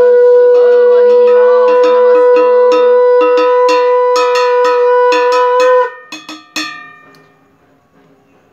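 Conch shell (shankha) blown in one long, steady, loud note lasting about six seconds, with a hand bell rung rapidly, about three strokes a second. The conch cuts off sharply and the bell rings on for about a second more before it stops.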